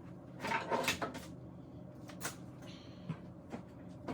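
Rummaging and handling noises: a cluster of rustles and knocks about half a second in, a sharp click a little after two seconds, then a few light ticks.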